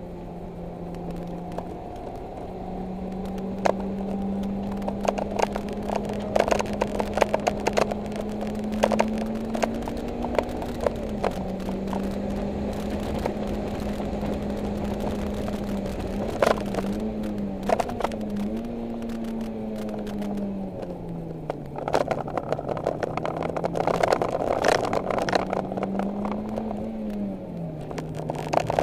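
Cabin sound of a 2011 Mitsubishi Lancer Evolution X GSR's turbocharged 2.0-litre four-cylinder running hard around a race track. The engine's pitch holds fairly steady but dips and recovers a few times, falling lower about three quarters of the way through and again near the end. Scattered sharp clicks and rattles sound throughout.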